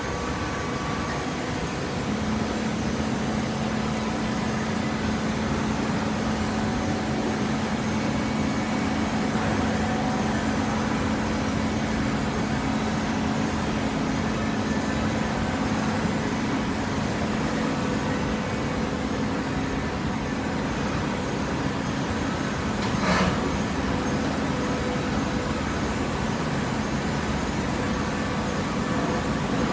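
Hydraulic cardboard baler running, its pump motor giving a steady hum that sets in about two seconds in over general machine noise, with one short knock about 23 seconds in.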